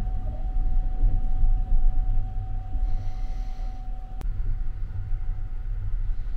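Sunrise Seto 285-series sleeper train running at speed, a steady low rumble of the carriage on the track heard inside a closed compartment, with a faint steady high tone over it. A single sharp click about four seconds in.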